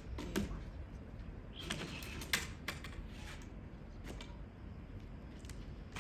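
Faint, irregular clicks and light knocks, about half a dozen, over low background noise.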